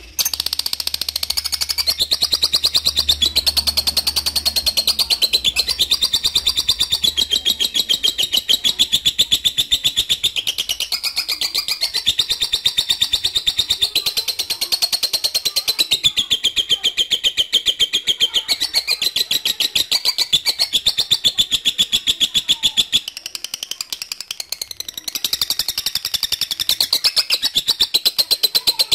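Lovebird 'ngekek': a long, rapid chattering trill of high notes, unbroken and shifting pitch every second or two, with a softer stretch about two-thirds of the way through.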